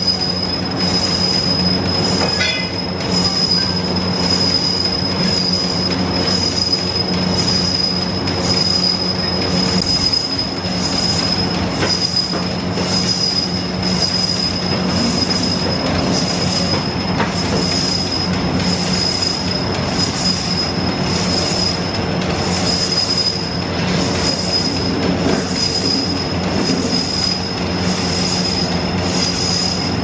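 LPG gas torch burning steadily while heating clay bell moulds. It gives a steady rushing hum with a thin high whistle over it and a faint pulsing about once a second.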